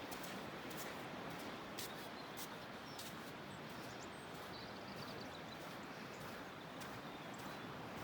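Steady rushing of a waterfall, an even wash of falling and splashing water with a scattering of small high clicks.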